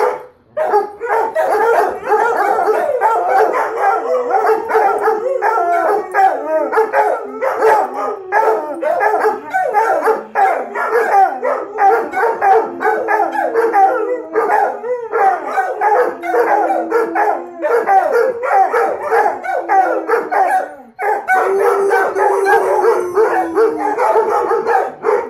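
Several dogs, including a German Shepherd and an Australian Shepherd, howling and yipping together in a long chorus. Drawn-out howls sag slowly in pitch, and there is a brief break about 21 seconds in.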